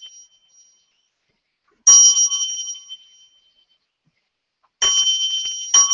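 A small Zen hand bell (inkin) is struck three times: about two seconds in, about five seconds in and again just before the end. Each stroke rings clear and high and dies away over a second or so. The bell marks the prostrations in the ceremony.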